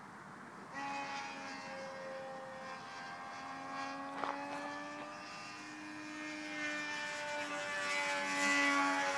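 Model airplane engine running with a steady buzz that starts abruptly about a second in, its pitch drifting only slightly and getting a little louder near the end.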